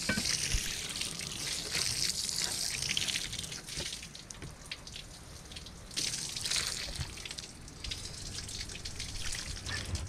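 Water running and trickling with some splashing, swelling and fading over the seconds, with a few scattered small knocks from handling on the table.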